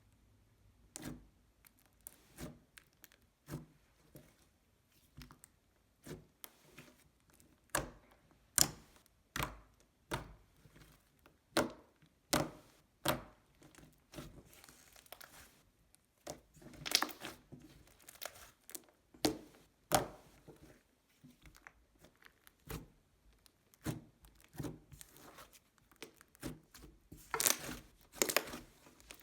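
Slime being squished, poked and stretched by hand, giving a string of sharp pops and crackles with a few longer crackly stretches.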